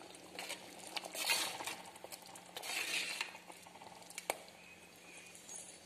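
A metal ladle stirring curry in a clay pot: a few irregular scraping strokes against the pot, with one sharp clink about four seconds in.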